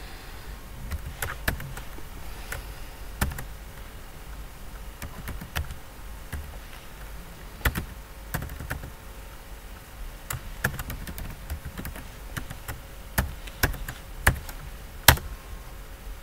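Computer keyboard being typed on slowly: irregular, spaced-out single keystrokes, with one louder keystroke near the end.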